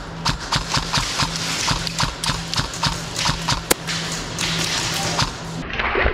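Airsoft rifle firing quick single shots, about four a second, each a sharp click, over an on-and-off low hum, with one sharper crack about halfway through.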